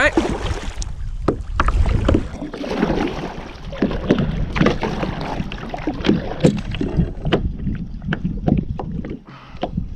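Kayak paddling: the paddle blades splash and dip in the water at irregular strokes, with occasional knocks, over low wind rumble on the microphone.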